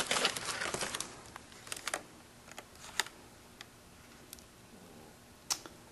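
Packing material rustling as items are pulled out of a tightly stuffed shipping box, thinning out after about a second into scattered small clicks and taps of packaged parts being handled.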